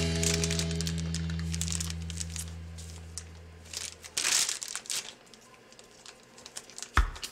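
A held low music chord fades away over the first four seconds. Through and after it, a plastic piping bag crinkles and rustles in the hands, loudest about four seconds in. A sharp hit comes near the end.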